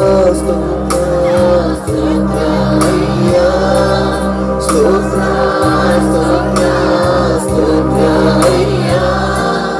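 Congregation praising and singing aloud together, many voices at once, over steady sustained keyboard chords with occasional percussion hits.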